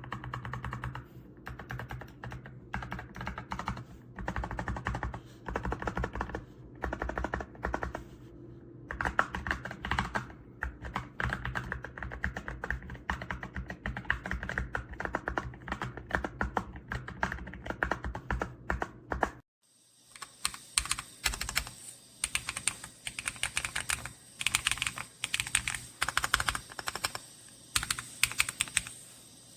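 Rapid, continuous typing on a mechanical numeric keypad, many key presses a second. About 19 seconds in the sound cuts out briefly and resumes with brighter, sharper clicks.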